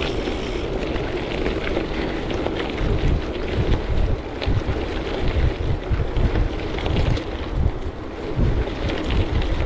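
Wind buffeting the microphone of a bike-mounted action camera while riding at speed, in gusts of low rumble, over the steady hiss and faint crackle of bicycle tyres rolling on a dry, needle-covered trail.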